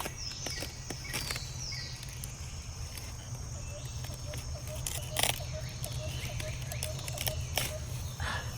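Outdoor garden ambience: a steady low rumble on the microphone with a few knocks, a faint high steady tone, and a run of short, evenly spaced chirps over the second half.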